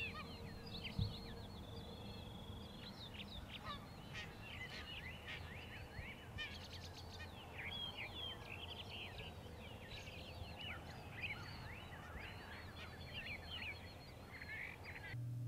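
A Canada goose honking faintly in many short, repeated calls: it is answering a turkey box call.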